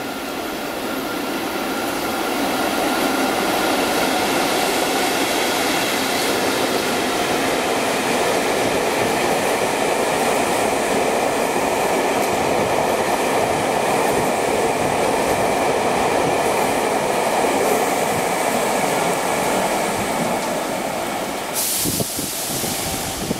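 A locomotive-hauled freight train carrying new Tobu 500 series cars passes at speed. Its wheel-on-rail rolling noise builds over the first few seconds and then holds steady, with faint steady tones above it. A short hiss comes near the end.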